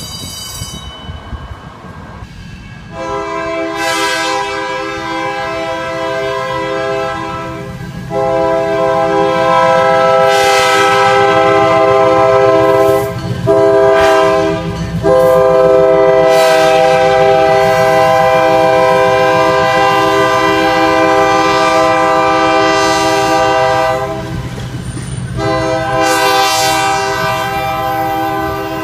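Locomotive air horn sounding a chord in long blasts with one short blast between them (long, long, short, long), the pattern of a grade-crossing signal, then another blast near the end, over the low rumble of the passing train.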